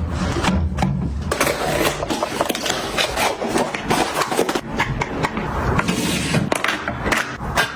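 Household items being handled: repeated clicks, knocks and scraping. A low steady hum stops about a second in.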